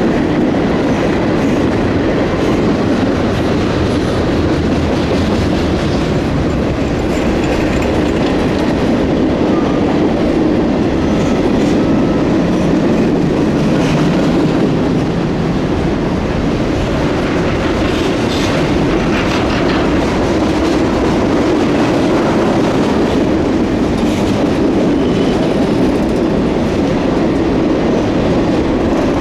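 Railroad cars rolling steadily past, with a constant rumble and the clickety-clack of wheels over the rail joints.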